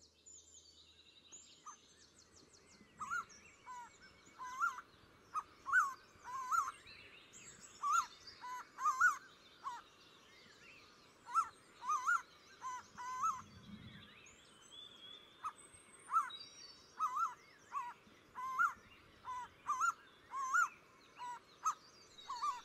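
Forest birdsong: one bird repeating short, clear whistled notes in groups of two or three, with fainter high chirps and twitters from other birds.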